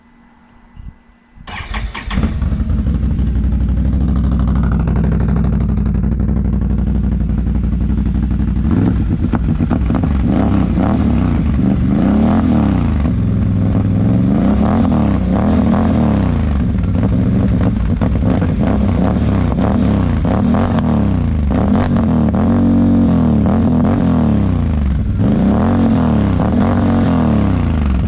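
Can-Am Renegade XXC 1000 quad's V-twin engine breathing through an RJWC dual exhaust with its noise reducers fitted. It starts about a second and a half in and idles. From about eight seconds on it is revved in repeated short blips, about one a second.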